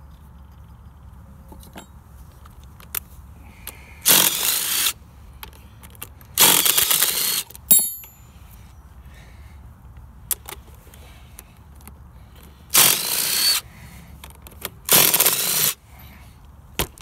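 Ridgid R86034 18-volt cordless impact driver with a socket driving the pump's casing bolts, in four bursts of about a second each. A short metallic clink of tools comes between the second and third bursts.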